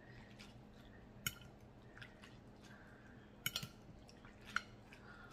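Faint wet clicks and drips from noodles and broth being lifted with a spoon out of a glass bowl of pho, a few separate sharp ticks spread through, over a faint steady hum.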